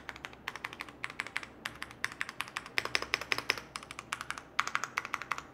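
Typing on a mechanical keyboard fitted with aftermarket keycaps: a quick, steady run of keystroke clacks, several a second.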